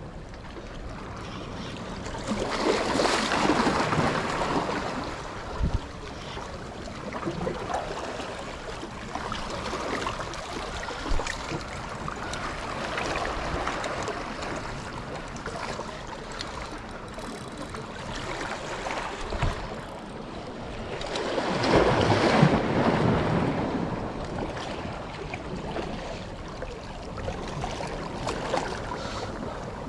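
Sea waves washing onto the shore, two larger waves swelling and fading away, with wind noise on the microphone.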